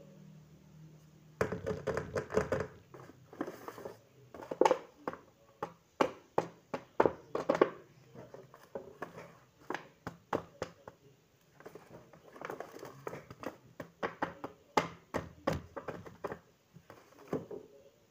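Paper rustling and crinkling, with irregular clicks and taps, as a handmade paper blind bag is handled and opened. A clear plastic piece is handled near the end.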